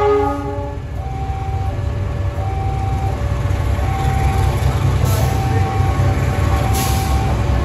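Container freight train's wagons rumbling steadily past on the rails, with the tail of a train horn blast dying away at the start. Throughout, a level-crossing alarm sounds its two-tone chime, a high note and a low note alternating about every 0.6 seconds.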